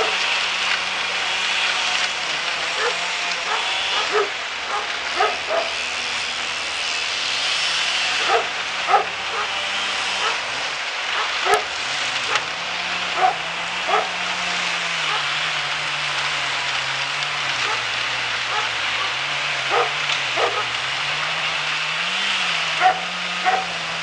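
Wood chipper engine running steadily, its pitch wavering a little. Short sharp sounds come over it every second or two.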